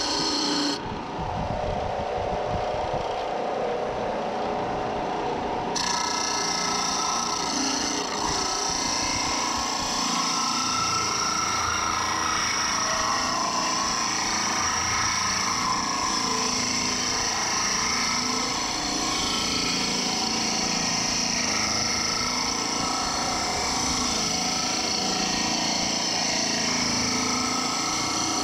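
A power tool running steadily with a continuous motor drone.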